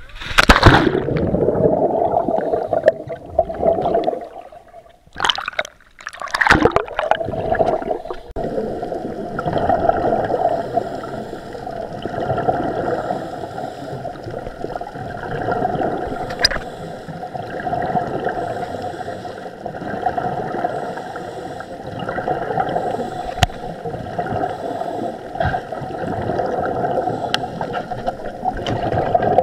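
Water splashing around the camera near the start and again about six seconds in, then a steady, muffled underwater gurgle that swells and fades every few seconds.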